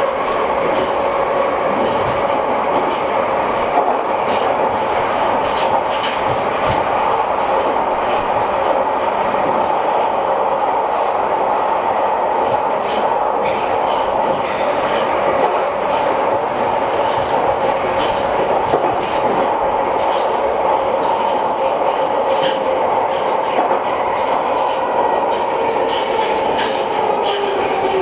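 London Underground 1973 Stock train heard from inside the car while running at speed through a tube tunnel: a steady traction-motor whine over a rumble, with scattered clicks of the wheels over rail joints. Near the end the whine starts to fall in pitch as the train slows.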